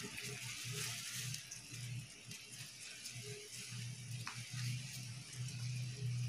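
Saucepan of water and jaggery boiling on a gas stove: a steady bubbling hiss, with a low hum coming and going underneath.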